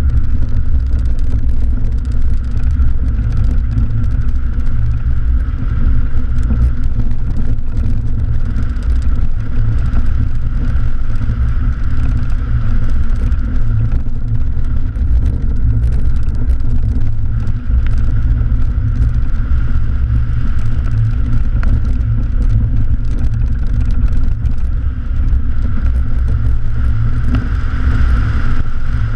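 Mercedes-Benz 190E 2.3-8v's four-cylinder engine running steadily as the car drives a grass rallycross course, heard through a camera mounted on the outside of the car, with a heavy low rumble throughout.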